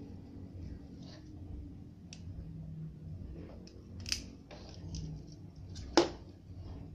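Small clicks and taps of hands handling a CRT television's neck circuit board and its plastic picture-tube socket. One click about four seconds in stands out, and the loudest, sharpest click comes about six seconds in.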